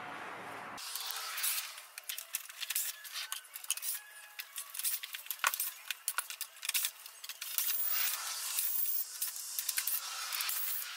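Cordless drill-drivers running in short spells as screws are backed out of a plastic bumper-cover grille frame, with many quick clicks and light rattles of screws and plastic.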